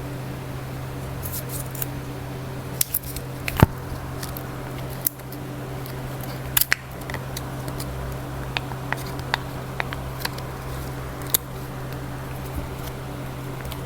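Small tools clicking and scraping against a smartphone's parts as it is taken apart, in scattered sharp clicks with one louder snap a few seconds in, over a steady low hum.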